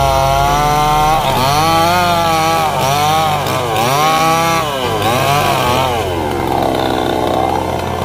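Chainsaw cutting through a felled neem trunk. The engine's pitch repeatedly drops as the chain bites into the wood and rises again as it frees up.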